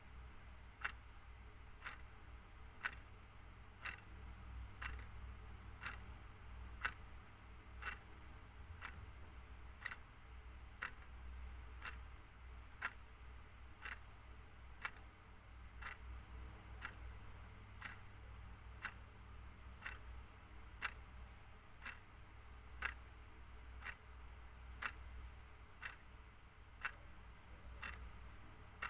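Clock ticking steadily about once a second, alternate ticks louder in a tick-tock pattern, over a low steady hum.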